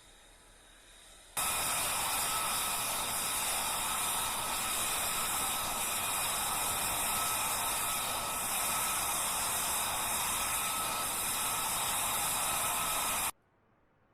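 F-35B jet engine running at steady power: a loud, even rushing noise with high whining tones through it. It cuts in suddenly about a second in and cuts off abruptly just before the end.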